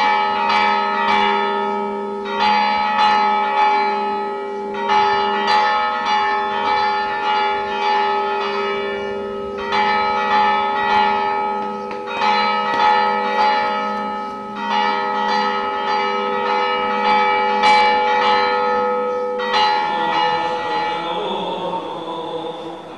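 Greek Orthodox church tower bells rung together, struck over and over in a quick rhythm, each clang ringing on under the next. The striking stops about twenty seconds in and the ring dies away.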